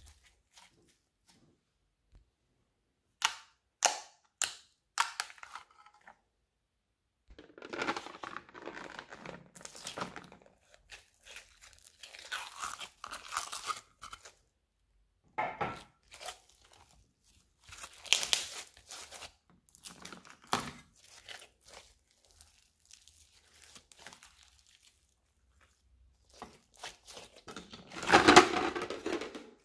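Slime being squeezed, stretched and pressed by hand, giving irregular bursts of crackling and popping from air pockets, with a quick run of sharp pops a few seconds in and the longest, loudest crackle near the end.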